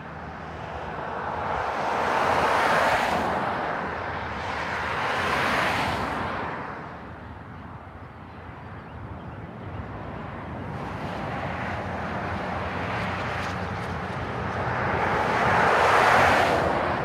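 Highway traffic: several cars pass one after another at speed, each a rush of tyre and road noise that swells and fades over a few seconds, the loudest near the end.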